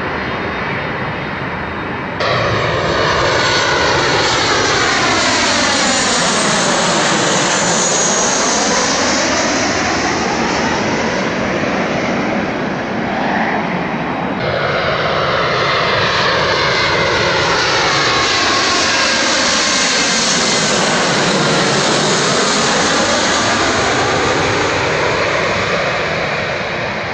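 Two airliners passing low overhead on approach, one after the other. Each is a loud rush of jet engine noise with a sweeping, phasing whoosh that falls in pitch and then rises as the plane goes over. The first comes in abruptly about two seconds in, and the second cuts in abruptly about halfway through.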